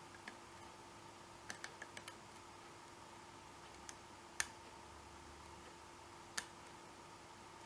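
Small metallic clicks of a lock pick and tension wrench working the steel pin tumblers of an American Series 790 padlock under light tension: a quick run of faint clicks about a second and a half in, then two sharper clicks, the louder about four seconds in and another about two seconds later. A faint steady hum runs underneath.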